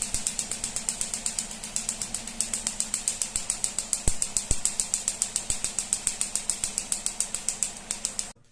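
Toyota Corolla GLI engine idling with a fast, even ticking over a steady hum, on an engine with a misfire at idle; two sharper knocks come about halfway, and the sound cuts off suddenly near the end.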